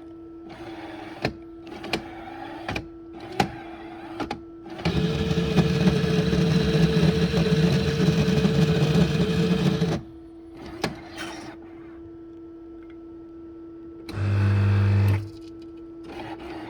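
Coffee maker machine working: a few sharp clicks, then its motor runs loudly for about five seconds and stops. Near the end it gives a short low buzz of about a second over a steady background hum.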